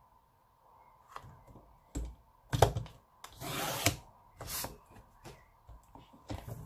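Fiskars sliding paper trimmer cutting a strip of black cardstock: clicks and knocks as the card and the cutting arm are set, then two rasping slides of the blade carriage along the rail, about three and four and a half seconds in.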